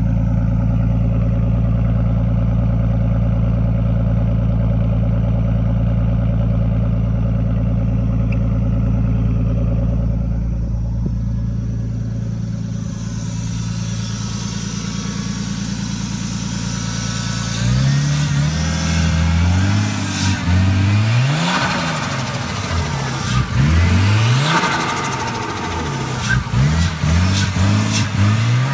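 Single-turbo 1991 Nissan Skyline R32 engine idling steadily, then, past the halfway point, revved in a series of quick throttle blips that rise and fall. Short bursts of turbo flutter follow the revs.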